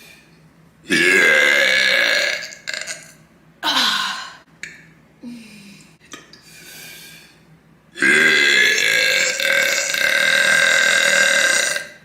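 A woman burping: a long burp about a second in, a short one around three and a half seconds, and a very long, drawn-out burp of about four seconds near the end. She is gassy and bloated from chugging seltzer.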